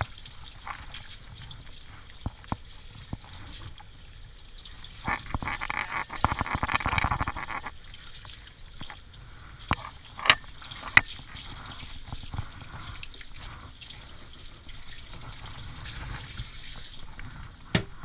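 Water from a handheld bathing sprayer rinsing a wet standard poodle puppy's coat and running off into the tub. It is louder for a couple of seconds about five seconds in, and a few sharp clicks sound around the middle.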